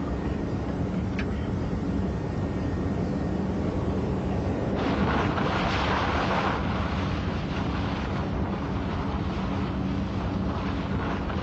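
Steady road and engine rumble of a moving car, with a louder rush of hissing noise for a second or two about five seconds in.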